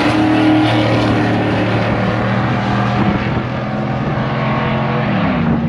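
Car engine held at high revs on a drag-strip pass, a steady pitched drone that drops in pitch near the end as the throttle eases off.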